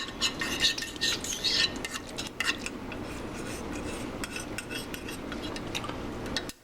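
A spoon stirring a sauce in a bowl, with many quick clinks of metal against the bowl. It stops suddenly at the very end.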